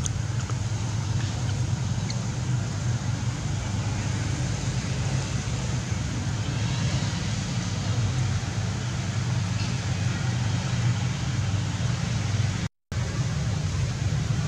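Steady low rumble of distant road traffic, cutting out for a moment near the end.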